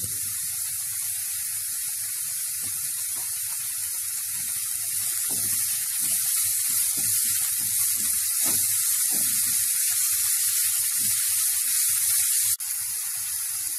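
Diced carrot, beans, cabbage and capsicum sizzling in hot oil in a nonstick kadai, sautéing. From about five seconds in, a spatula stirs and scrapes them around the pan; near the end the sound drops suddenly to a quieter sizzle.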